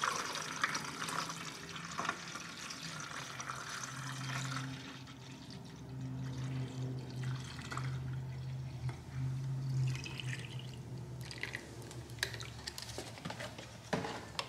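Water poured from a plastic bottle into a small plastic washer-fluid reservoir, splashing and trickling as the tank fills. The stream is heaviest for the first four seconds or so, then thinner. A low hum runs underneath, and there are a few sharp clicks near the end.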